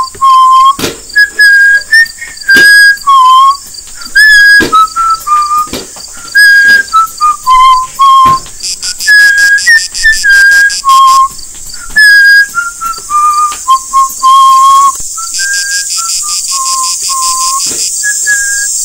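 A whistled tune of short held notes stepping up and down between a few pitches, with sharp clicks between some of the notes. A steady hiss rises in the last few seconds.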